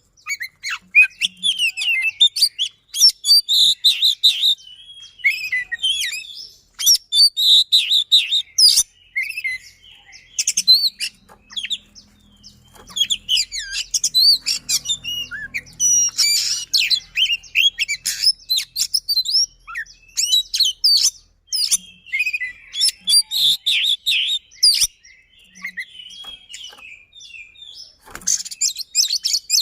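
Oriental magpie-robin (kacer) singing in full voice: fast, tightly packed phrases of rolling and sharp, piercing notes, broken by short pauses.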